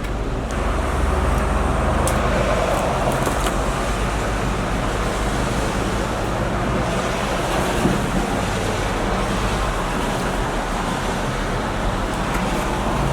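Steady low rumbling background noise, like traffic or an engine, starting abruptly and holding even throughout, with a few faint clicks.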